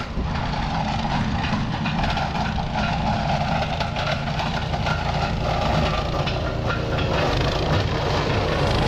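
Princess Auto 15-horsepower wood chipper running loud and steady while chipping wood.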